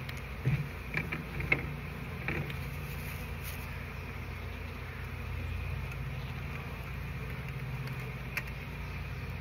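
Honey bees buzzing in a steady low hum as they fly around an open trash can they are being moved out of. A few sharp knocks come in the first couple of seconds, and one more near the end.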